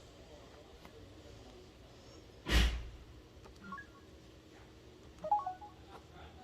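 A brief loud burst of handling noise about two and a half seconds in. After it come short, quiet keypad beeps from a Samsung SGH-A877 Impression phone: a couple just after, then a cluster about five seconds in.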